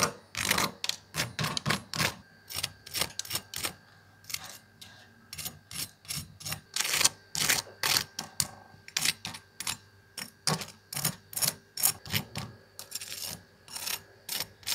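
A fork scraped along the flour-coated skin of deep-fried chicken wings right at the microphone: many sharp crackles and crunches in quick succession. The crunch is an audio test of how crispy each fried flour coating is.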